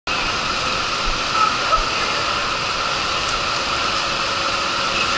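Water rushing steadily into a water slide's start pool and down the flume, a constant loud rush.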